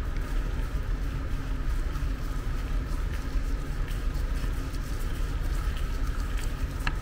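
Steady low mechanical hum with a thin, even whine above it and a few faint clicks.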